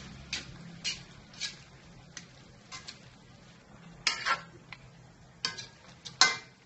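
Wooden spatula stirring a thick tomato-and-meat sauce in a stainless steel pan, scraping and knocking against the pan's sides and bottom in irregular strokes. The loudest knocks come about four seconds in and near the end.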